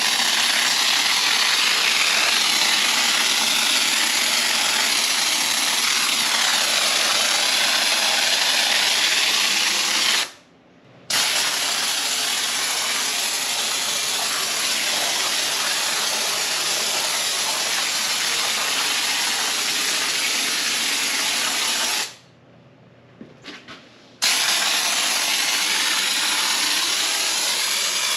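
Can of spray-foam insulation dispensed through a foam gun, hissing steadily as the foam sprays out. The hiss stops twice, for about a second near the middle and for about two seconds later on.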